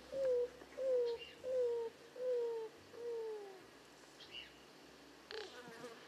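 Greater roadrunner song: a series of about five low cooing notes, each sliding slightly down in pitch and coming roughly every half second, the last ones lower and drawn out. A short rattle follows near the end.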